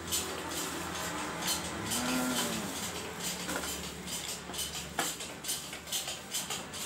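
Small clicks and rattles of plastic buckles and clips as a chest-strap phone mount is handled and fitted together, with a sharper click about five seconds in. A steady low hum runs underneath and stops about five seconds in. There is a short rising-and-falling call about two seconds in.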